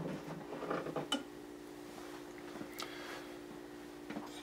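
Light metallic clicks and taps of M1 rifle parts being handled, a sharper knock at the start and another about a second in, as the coiled operating rod spring is picked up, over a steady low hum.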